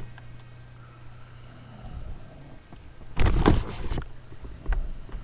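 A person snoring: one loud snore about three seconds in, lasting under a second, and a shorter, fainter one near the end, over a steady low hum.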